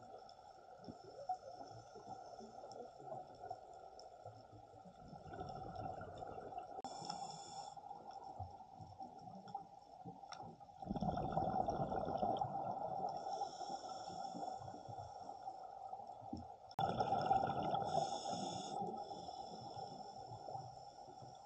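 Underwater sound of a scuba diver breathing through a regulator: hissing inhalations and rumbling bursts of exhaled bubbles. Two louder bubbling stretches start suddenly, about halfway through and again near three quarters.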